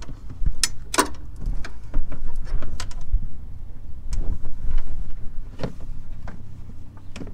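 Scattered clicks and knocks of hands and tools working a new clutch cable into place, the loudest about a second in, over a constant low rumble.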